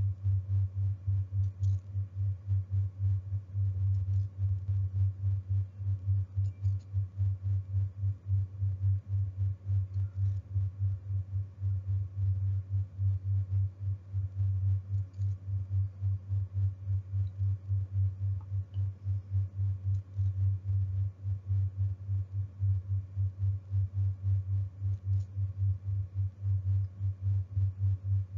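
A low electronic tone pulsing evenly a few times a second, with no other sound over it.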